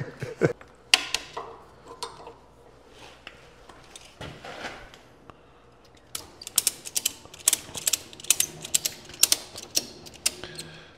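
Metal-on-metal clicking and rattling of a clamp and the lathe chuck being worked by hand while the pulley is clamped in place: a few scattered clicks, then a quick irregular run of sharp clicks in the second half.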